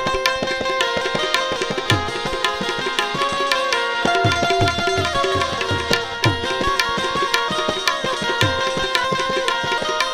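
Instrumental break in a Gujarati song: tabla playing a brisk rhythm, its bass drum giving repeated falling pitch glides, under a harmonium holding steady notes.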